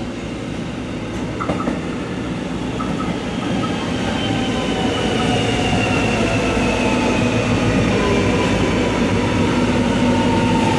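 Alstom X'trapolis electric multiple-unit train pulling into the station platform and growing steadily louder as it approaches. A thin whine falls slowly in pitch as it brakes for its stop.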